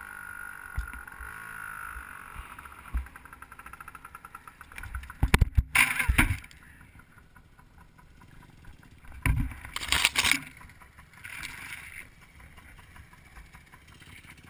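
Yamaha PW80 two-stroke dirt bike engine running steadily on the trail, then about five seconds in a cluster of loud knocks and crashes as the bike and rider go down in a fall. A second burst of loud knocks follows around ten seconds in, with the engine no longer heard.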